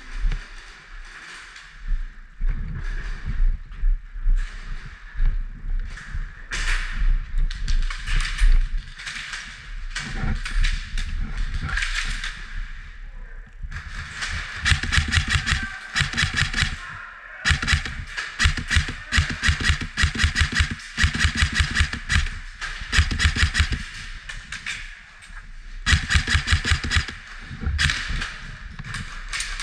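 Airsoft rifles firing on full auto: rapid rattling bursts of shots, several long bursts back to back from about halfway through, after scattered single knocks and clatter in the first half.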